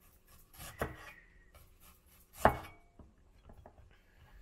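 Chinese cleaver slicing fresh ginger root into rounds and striking a wooden cutting board: two distinct chops, the louder one about two and a half seconds in, followed by a few light taps.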